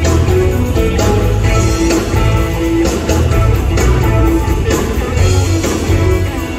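Live band music played loud: an electric guitar carrying an instrumental passage over bass and a steady drum beat.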